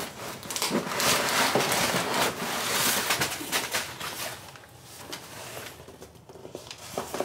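Packaging rustling and tearing as a parcel is opened by hand. A dense, crackling burst of it runs from about one to four seconds in, then gives way to quieter handling.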